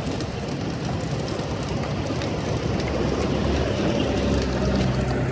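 Steady street traffic noise with the hiss of a gas wok burner under fried rice. A passing engine swells louder about three seconds in.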